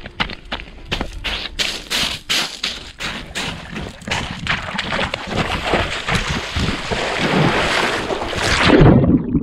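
A person running with quick footsteps, then a rising rush of noise, then a plunge into water about nine seconds in, after which the sound turns dull and bubbling under the surface.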